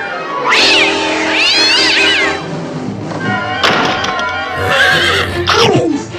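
Cartoon cats meowing in drawn-out, rising-and-falling cries over orchestral film music.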